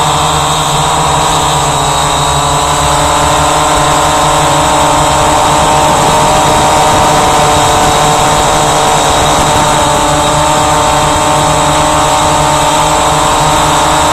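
Walkera Voyager 3 quadcopter's electric motors and propellers in flight, heard from on board: a loud, steady whine of several tones that shifts slightly in pitch in the first few seconds as the throttle changes.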